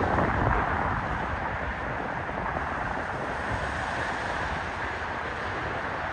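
Electric commuter trains approaching in the distance, a steady rumble and hiss, with wind buffeting the microphone.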